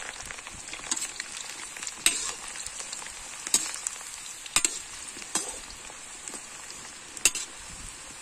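Potato fries sizzling in hot mustard oil in a metal kadai during their second fry, with a steady hiss. A metal slotted spoon stirs them and clinks sharply against the pan about six times.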